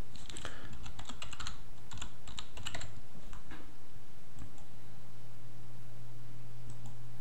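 Computer keyboard being typed on: a quick run of keystrokes in the first three seconds, then a few scattered clicks, over a steady low hum.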